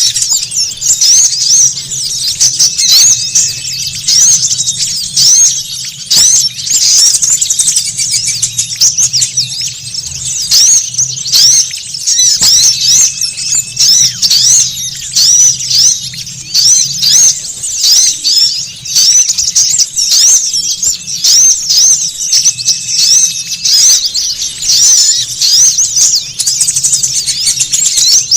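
Busy, loud chatter of small songbirds: many rapid high-pitched chirps that overlap without a break. It is a bird-lure call of agitated small birds, played to draw wild small birds in.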